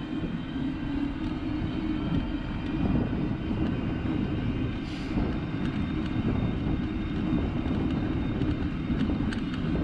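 E-cargo bike's tyres rolling over a coarse asphalt surface at around 20 km/h, a steady low rumble of road noise that grows a little louder as the bike picks up speed.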